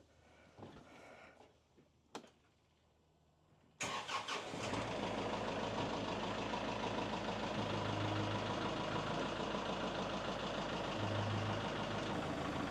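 Engine of a small front-loader tractor starting about four seconds in, catching at once after a brief rough moment and then running steadily at idle. A few faint knocks come before it.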